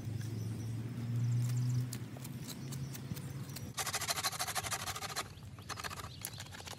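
Small pine twigs snapped and broken up by hand, heard as a dense crackling burst about four seconds in and a shorter one near the end. A low hum runs through the first few seconds.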